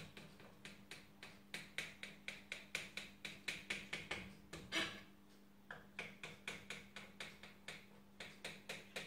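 Knife scoring a raw phyllo chicken pie in its baking dish: a run of quick, crisp clicks, about four a second, with a short break about five seconds in.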